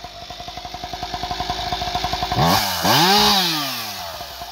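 Husqvarna 585 XP two-stroke chainsaw with an expansion chamber exhaust pipe, idling with an even pulsing beat. About two and a half seconds in it is revved up once and drops back to idle.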